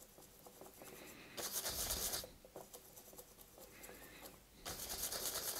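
Paintbrush bristles scrubbing through thick red paint on a palette: two bouts of scratchy rubbing, about a second each, with faint brushing between.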